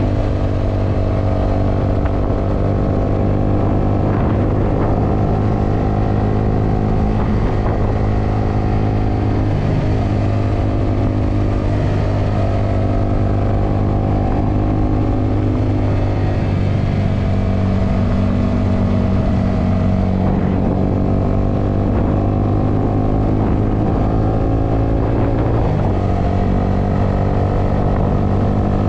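Honda scooter's single-cylinder engine running steadily at cruising speed, heard from the rider's seat, its pitch drifting only slightly, under a steady rush of wind and road noise.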